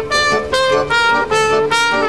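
Trumpet playing a quick melody of short, separate notes, with accordion and guitar accompanying beneath it through a PA.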